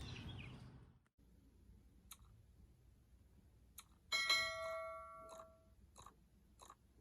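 A short ringing chime of several tones about four seconds in, dying away over about a second, followed by soft evenly spaced ticks, about one and a half per second.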